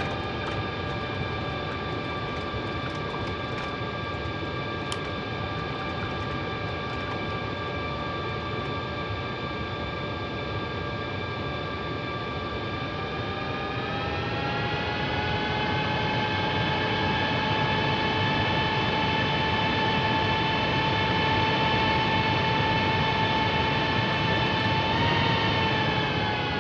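Airbus A321neo's jet engines heard inside the cockpit after landing, a steady whine over a rushing noise; about halfway through the whine rises in pitch and gets louder, then eases a little near the end.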